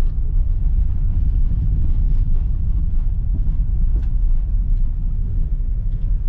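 Car driving, heard from inside the cabin: a steady, low road and engine rumble with no change in pace.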